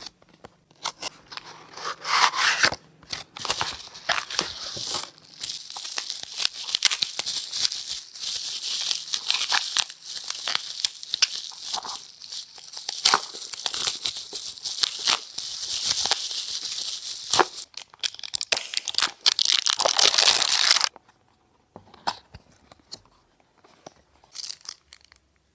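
Phone packaging being unboxed by hand: cardboard and plastic wrap tearing, crinkling and scraping, with many sharp clicks and snaps. The handling goes quiet about 21 seconds in, leaving only a few soft taps.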